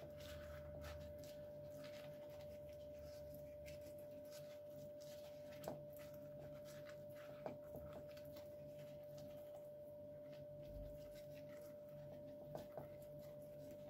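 Faint steady high hum, with soft brushing and a few light taps as a silicone pastry brush dabs sauce over crumpled layers of yufka pastry in a frying pan.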